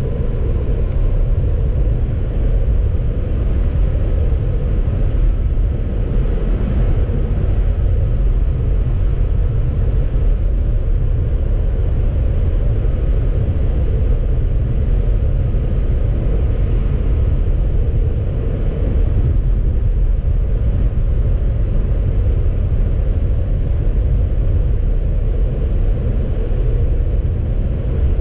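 A car driving along: a steady low rumble of road and engine noise, with a faint even hum above it.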